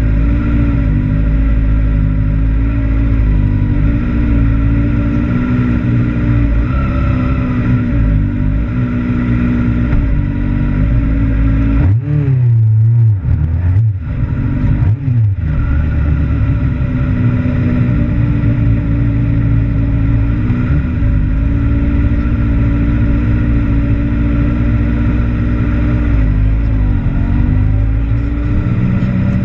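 A sport bike's engine heard from a camera mounted on the bike, running at low revs with small wavers in pitch. About twelve seconds in, a few quick throttle blips rise and fall in pitch before the engine settles back to its steady note.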